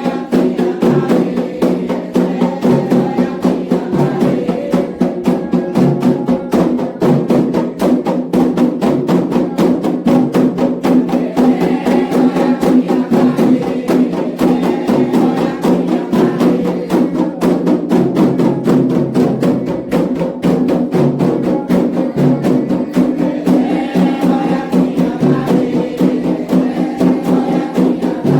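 Candomblé xirê music: atabaque hand drums and a struck agogô bell keep up a fast, steady rhythm while a group of voices sings a chant.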